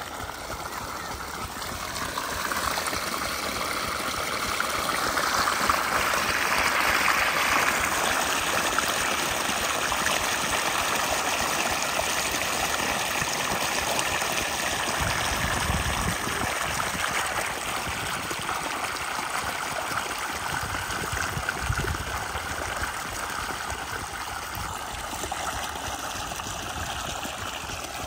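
Irrigation water gushing from a diesel pumpset's outlet pipe and rushing across a flooded field: a steady splashing rush that grows louder over the first few seconds. Two dull thumps come partway through.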